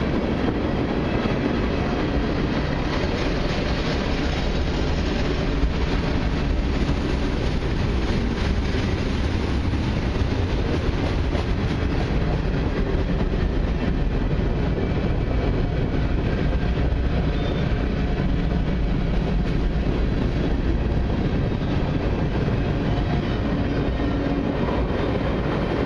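Cars of a long mixed freight train rolling past at close range: a steady loud rumble and rattle of steel wheels on the rails, with a light clickety-clack.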